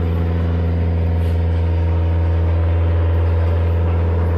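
Engine of heavy equipment running at a steady speed, a loud, even low drone.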